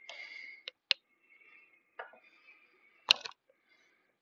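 Handling noise from a boxed coin and plastic coin capsules: a short scraping rustle, then two sharp clicks, one about a second in and a louder one about three seconds in.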